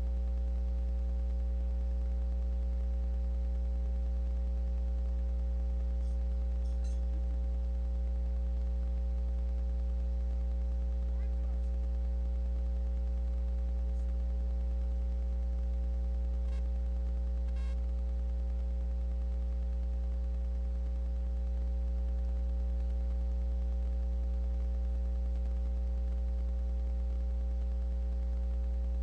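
A steady low hum with several faint steady tones above it, unchanging throughout, with a few faint ticks about six, fourteen and seventeen seconds in.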